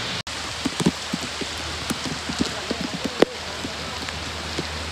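Rain and floodwater: a steady hiss with many small drops and splashes scattered through it, the sharpest a tap about three seconds in, and a momentary gap just after the start.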